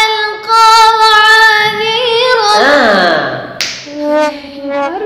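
A young girl chanting a Quran verse in tarannum (melodic recitation) style. She holds one long high note for about two seconds with small wavering ornaments, slides down in pitch about three seconds in, then sings shorter phrases near the end.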